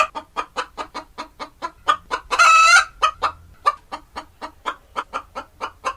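Chicken clucking in a rapid run of short clucks, about four a second, broken about two seconds in by one longer, louder squawk.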